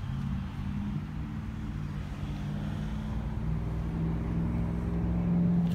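A motor vehicle engine idling steadily: a low hum whose pitch shifts slightly up and down.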